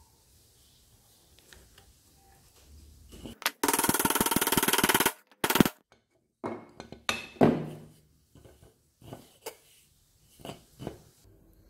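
A hammer knocking a small steel ball bearing into a tight-fitting hole in a wooden block. There is a fast, even run of taps for about a second and a half, then single knocks every second or so.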